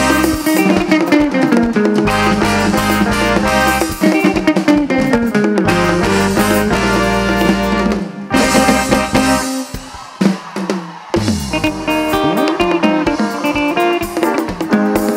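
Live highlife band playing, with drum kit, electric guitar, bass and horns. Around eight seconds in the band thins out briefly, then comes back in full.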